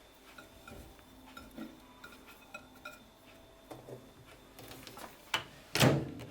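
Light clinks and taps of a dish being handled at a microwave oven, then two sharp knocks near the end, the second much louder.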